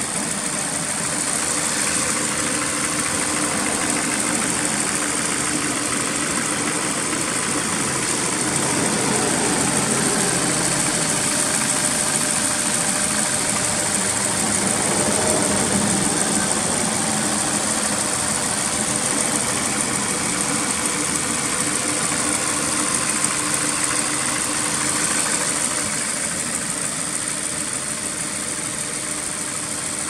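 Honda S2000 AP1's F20C 2.0-litre VTEC inline-four idling steadily, heard from the open engine bay.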